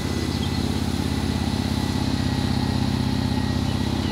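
Airport crash fire truck's engine running steadily with a fast, even throb while the truck pumps water through its front nozzle.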